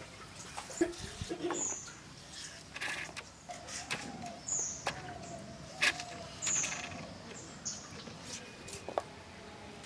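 Potatoes being peeled and cut against a boti's curved iron blade, giving a few irregular sharp clicks. A bird repeats a short, high, falling chirp every second or two.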